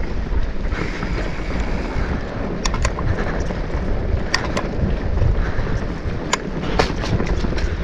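A mountain bike rolling fast over a rocky trail, with wind rushing over the microphone and the tyres rumbling on stone. About half a dozen sharp clacks come from the middle of the stretch on as the bike rattles over rocks.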